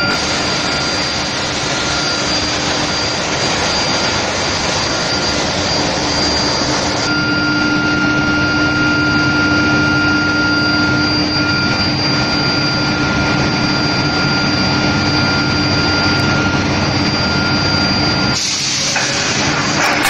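Induction heat-treatment line for steel bars running: a steady, loud machine noise with steady high tones through it. The sound shifts about seven seconds in and again near the end.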